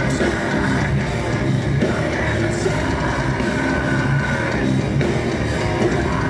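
Heavy metal band playing live: distorted electric guitars over drums, loud and unbroken.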